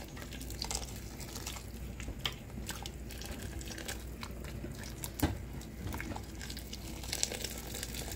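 Boiling water poured from a kettle into a pressure cooker of stewing beef ribs, splashing into the broth, while a silicone spatula stirs and taps against the pot. There is a single sharper knock about five seconds in.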